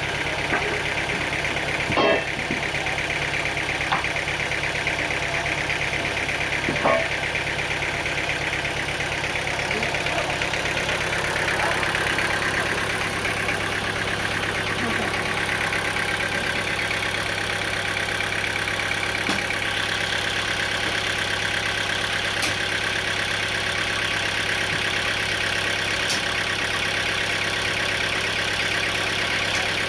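An engine running steadily at idle, with a few sharp knocks in the first seven seconds. Its note shifts slightly about twelve seconds in.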